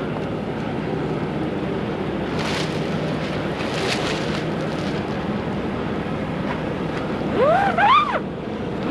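Wind noise on the microphone together with the crackling rustle of clear plastic lumber wrap being handled. Near the end comes a short squeal that rises and falls in pitch.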